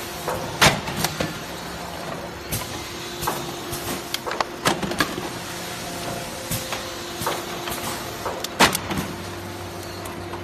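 Rotary plastic-cup sealing machine running: a steady mechanical hum with irregular sharp clicks and knocks as it works.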